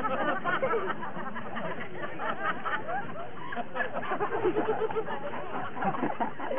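Audience chatter with scattered chuckles and snickers, many voices overlapping.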